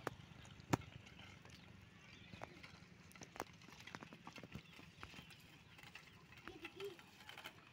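Bicycles ridden over a dirt ground: faint, irregular clicks and rattles from the bikes, with one sharper click about a second in.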